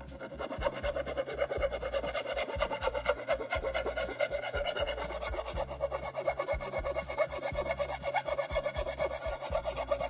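Hand file rasping around the edge of a freshly drilled hole in a water tank lid, in quick, steady back-and-forth strokes, opening the hole out to fit the water level sender.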